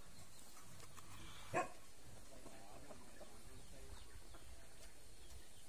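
A dog barks once, a single short loud bark about a second and a half in, over faint outdoor background.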